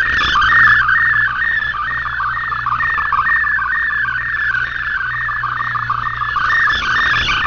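Shortwave radio receiving a digital data-mode transmission: a steady warbling stream of rapidly changing tones in a narrow band, the multi-tone FSK signal that carries Shortwave Radiogram's text and images, with a low hum under it.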